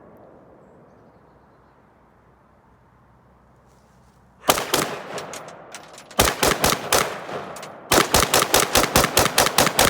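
DPMS AR-15 rifle firing: a quiet pause, then a first shot about four and a half seconds in, a quick cluster of shots a little later, and from about eight seconds in a fast, even string of shots at roughly four a second.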